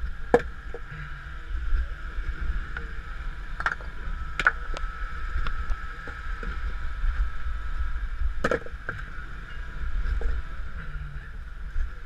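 Rocks knocking together as they are stacked by hand to build a step under a rock crawler's tyre: four sharp clacks, about half a second in, twice around four seconds in and once past eight seconds, over a low steady rumble.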